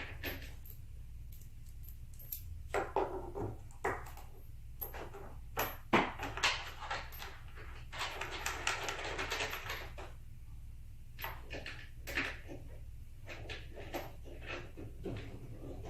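Assembly hardware being handled and tightened: metal bolts and washers clinking, knocks against the table's leg and frame, the loudest about six seconds in, and a dense run of rapid clicks around the middle.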